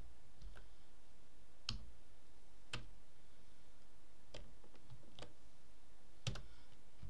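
About six single clicks of a computer mouse and keyboard keys, spaced irregularly, with the loudest near the end.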